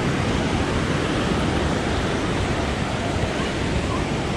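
Ocean surf washing onto a sandy beach, a steady rush of breaking waves with low rumble from wind on the microphone.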